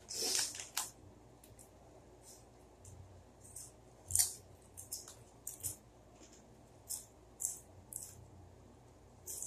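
Crunching of ghost pepper tortilla chips being chewed: short sharp crackles about once a second, the loudest about four seconds in, as a chip goes into the mouth.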